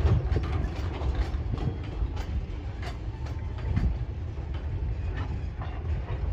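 Empty freight wagons of a Tasrail train rolling past: steel wheels clicking and clattering over the rail joints above a steady low rumble.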